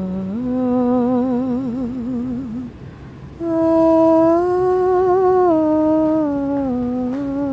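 A single voice humming a slow, wordless melody in long held notes. The first note wavers with vibrato. After a short breath about three seconds in, the tune steps up and then gradually back down.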